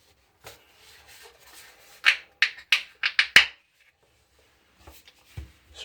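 A quick run of about five short rubbing or scraping sounds over a second and a half, about two seconds in, from shaving gear being handled.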